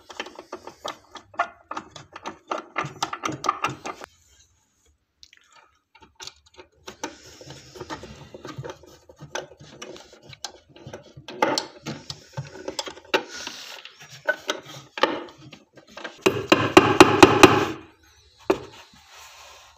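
Hand screwdriver driving wood screws through a metal drawer slide rail into a cupboard's wooden side, with small clicks and creaks as the screws turn. Near the end comes a short burst of rapid, loud scraping strokes.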